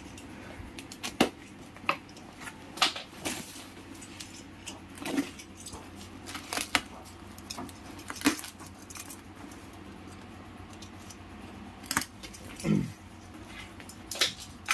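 Box cutter slicing the plastic strapping and packing tape on a cardboard carton, with scattered clicks, scrapes and rustling of cardboard as the box is cut open and handled.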